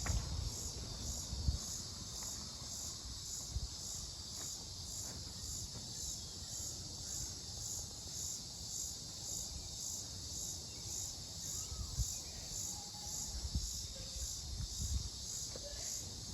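A steady chorus of singing insects, a high, evenly pulsing buzz that keeps going without a break, with a few low thumps underneath.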